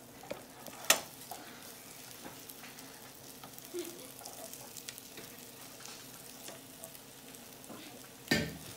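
Scrambled eggs sizzling quietly in a nonstick frying pan while a spatula stirs them, with a sharp tap about a second in and a louder knock near the end.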